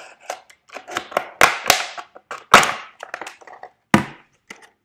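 Utility knife blade cutting through a thin 2-litre plastic bottle: scratchy cutting broken by several sharp cracks of the plastic, the loudest about two and a half seconds in.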